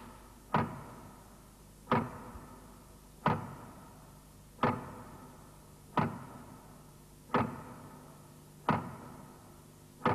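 A sharp percussive hit repeating at an even pace, about one every second and a half, eight times. Each hit rings on and fades slowly, with a few steady tones, before the next one.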